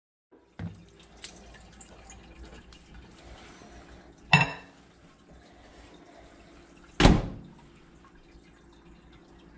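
Microwave door being handled: two sharp clunks about three seconds apart, about four and seven seconds in, over a low steady hum and light kitchen handling noise.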